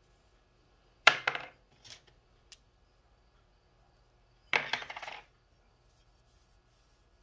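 Metal clutch parts from a disassembled Honda Goldwing clutch clinking together twice, once about a second in and again midway through, each a short clink that rings briefly. A couple of faint ticks follow the first.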